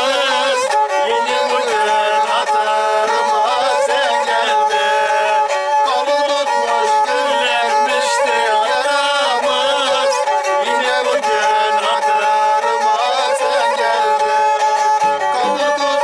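A small pear-shaped bowed folk fiddle, held upright on the knee, playing a traditional ornamented melody over steady drone notes.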